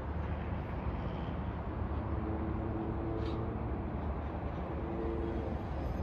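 Steady hum of distant city traffic heard from high up through an open window, with faint tones coming and going.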